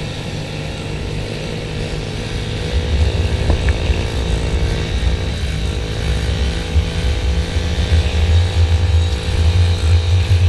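Small pit bike engines running steadily, with a heavy low rumble that grows louder about three seconds in.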